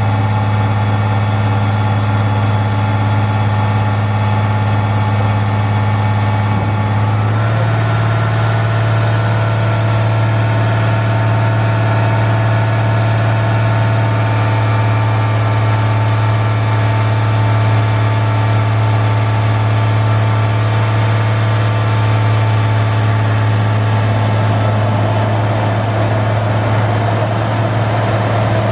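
Cummins L10 turbo diesel engine of a 1992 Ford L9000 crane truck running steadily, its pitch stepping up slightly about seven seconds in, with a rougher noise joining near the end.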